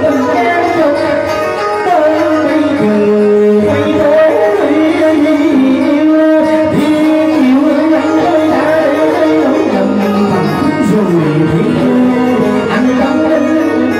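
A man singing a Vietnamese song through a microphone and PA, with live band accompaniment.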